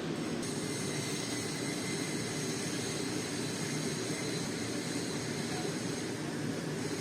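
Welding arc on stainless steel pipe, running steadily with an even hiss and low hum and no breaks.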